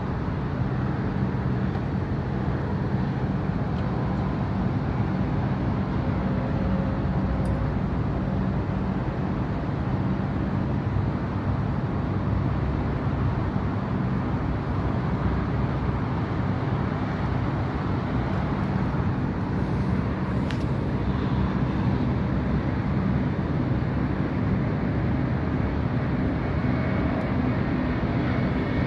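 Air-conditioning condensing unit running steadily: a continuous low mechanical hum from the compressor over the rush of its fan.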